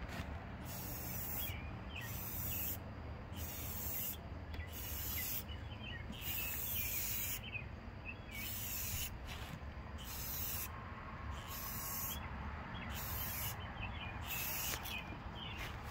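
Aerosol can of clear coat spraying onto a chrome grille in about a dozen hissing bursts, each roughly a second long, with short pauses between passes.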